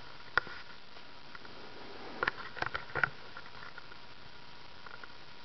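Emerson K55 stack-motor ceiling fan running steadily at a low speed setting, a faint even hum and whir. A sharp click sounds about half a second in, and a short cluster of clicks follows a couple of seconds later.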